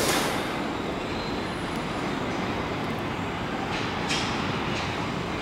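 R127 subway garbage train running through the station tunnel without stopping: a steady rumble of wheels on rail, with a brief hiss about four seconds in.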